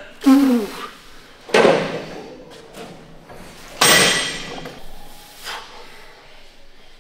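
Gym weights being set down: two loud clanks, about a second and a half in and about four seconds in, each ringing out for about a second, with a lighter knock later. A brief voice sound comes just before the first clank.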